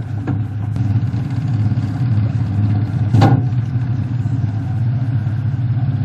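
A motor vehicle's engine running steadily with a low hum, with a short knock about three seconds in.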